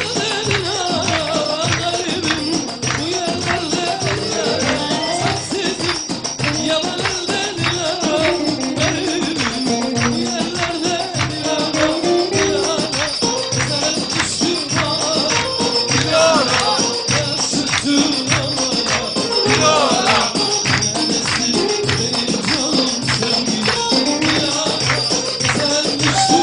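Upbeat dance music with a steady percussion beat and a sung melody.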